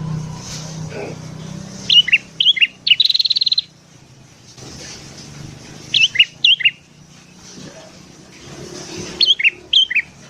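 Sooty-headed bulbul (kutilang) singing: three phrases of four or five short, bright whistled notes, a few seconds apart. The first phrase runs into a quick rattling trill.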